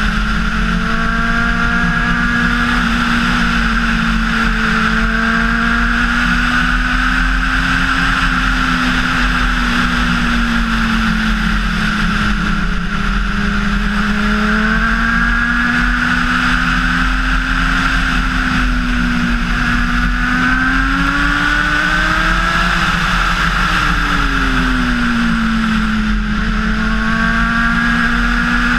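Honda CBR600RR's inline-four engine running at a steady cruise, its pitch rising and falling gently with the throttle, under a steady rush of wind. About three-quarters of the way through, the revs climb and then drop sharply before settling again.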